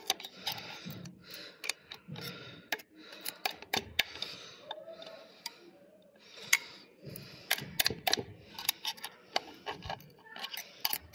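Small metal parts and tools clicking and clinking irregularly as an inline diesel injection pump is reassembled by hand, with soft scraping and handling noise between the clicks.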